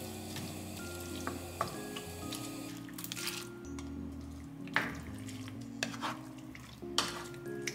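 Soft background music with held notes, over a wooden spoon stirring tomato sauce in a pan, with several short sharp scrapes and knocks through it.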